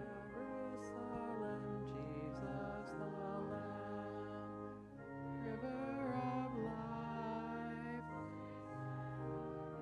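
A congregation singing a hymn verse to organ accompaniment: held organ chords change step by step under the wavering voices.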